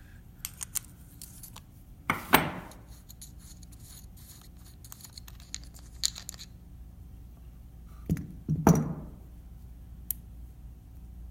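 Small metal clicks, clinks and knocks as a lawnmower carburetor is taken apart by hand, parts and tools handled and set down. Two louder knocks with a brief ring, about two seconds in and again near the end.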